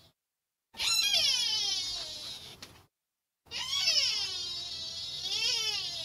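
An animal calling: two long, high-pitched cries, each falling in pitch, the second wavering up and down near its end.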